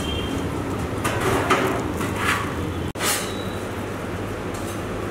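A silicone pastry brush swishing across soft burger buns as sauce is spread, a few short brushy strokes over a steady low hum, with a brief break in the sound just before three seconds in.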